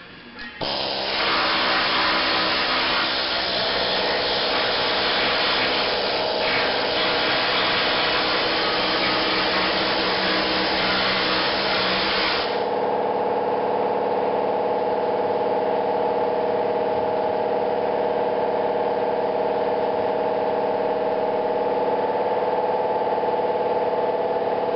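Air-powered needle scaler hammering old undercoating off a VW Beetle's steel floor pan, a loud, dense rattle that starts about a second in and stops about halfway through. It gives way to a steady machine hum that continues to the end.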